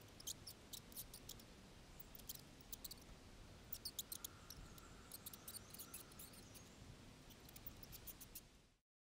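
Mice giving many quick, faint, high-pitched squeaks and ticks, scattered irregularly over a faint outdoor background hiss. The sound fades out near the end.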